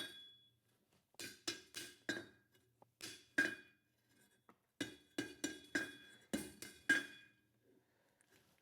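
Hammer blows ringing on an anvil as half-inch square steel bar is bent into a hook. There is a quick run of strikes about a second in, two more about three seconds in, then a longer run of strikes from about five to seven seconds.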